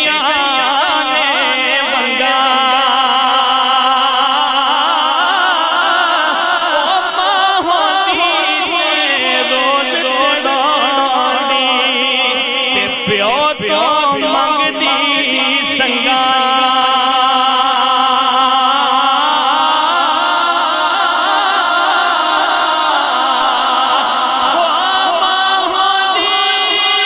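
A man singing a Punjabi devotional kalam (naat-style recitation) into a microphone, in long held notes that waver and bend with melodic ornaments.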